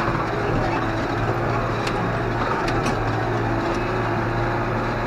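Tractor engine running steadily under load while pulling a field roller, with a few light clicks around the middle.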